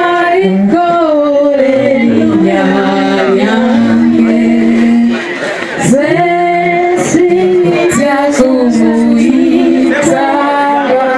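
Men's and women's voices singing together in long, sliding phrases, with a short break about five seconds in before the next phrase.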